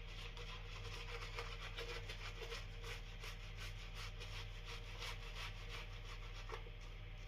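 Slant safety razor strokes scraping through lathered stubble: a soft, steady rasp peppered with fine crackles as the whiskers are cut.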